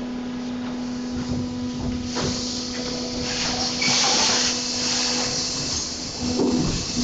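Injection moulding machine running a thin-wall container cycle with in-mould labelling: a steady motor hum, with bursts of hiss about two seconds in and again about four seconds in as the mould opens and closes.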